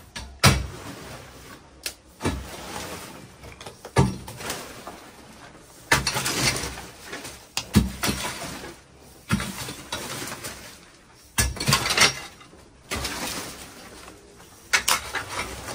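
Metal rake dragged through dry leaves, sticks and broken masonry on a concrete floor: a sharp clatter as it strikes, then a scrape and rustle, repeating about every one to two seconds.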